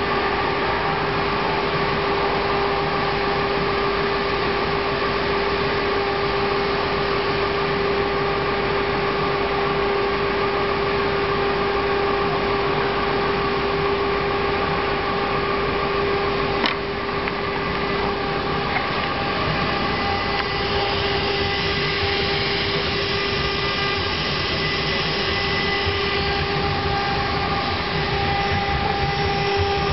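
Two spindles of a BMG-1325-2 twin-head CNC router running at steady speed, with a high steady whine over the hiss of the bits routing into a wooden board. A single sharp click about 17 seconds in.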